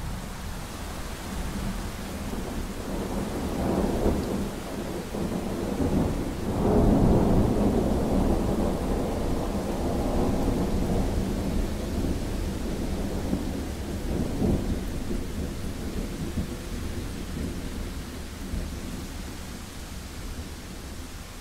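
Thunder rumbling over steady rain. A long roll builds about four seconds in and is loudest around seven seconds. A smaller swell comes near fourteen seconds, and the rumble then slowly fades.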